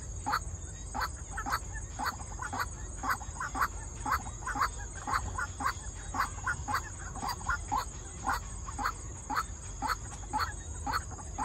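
White-breasted waterhen calling: short, slightly falling notes repeated steadily at about two to three a second, the bird's territorial call.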